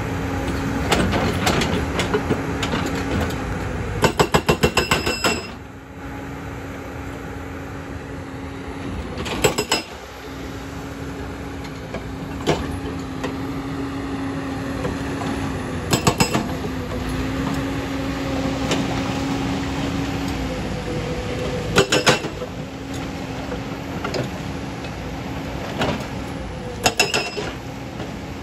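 A JCB tracked excavator's hydraulic breaker hammers stone in about five short bursts of rapid blows, with a metallic ring. The longest burst comes about four seconds in and lasts over a second. The excavator's engine hums steadily between bursts.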